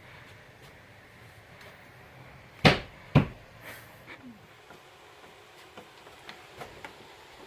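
Two sharp knocks about half a second apart, a little under three seconds in, followed by a few faint clicks.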